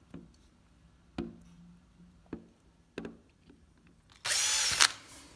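A few light clicks of handling, then a small electric drill runs in one short burst of about half a second near the end, boring a 1 mm pilot hole into a uPVC window's glazing bead.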